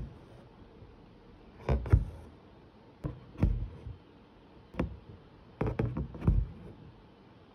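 Fingers rubbing and tapping across thin canvas stretched taut in an embroidery hoop, densely stitched with cotton floss. Five or so brief scratchy brushes come about a second apart, each with a soft drum-like thump from the tight fabric.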